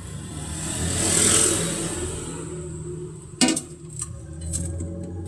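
Steady low electric hum of a freezer's compressor running. A louder engine-like swell rises and fades about a second in, and a single sharp click comes about three and a half seconds in.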